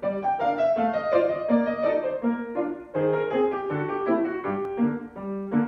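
Piano music: a melody of quick notes over lower bass notes.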